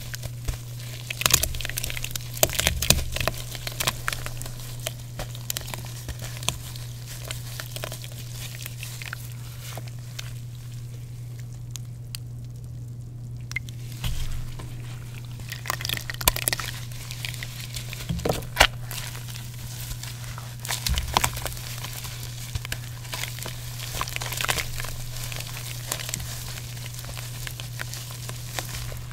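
Water-soaked gym chalk crumbled and squeezed by hand: irregular crunching and crackling, with a short lull about a third of the way through.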